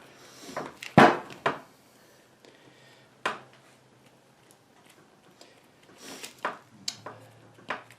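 A few sharp knocks and clatters of hard objects being handled and set down on a workbench, the loudest about a second in, with light rubbing and handling noise between.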